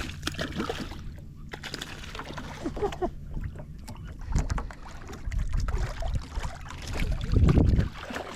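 Knocks, clicks and handling noises in a small fishing boat, with low rumbling thumps that grow from about four seconds in and are loudest near the end.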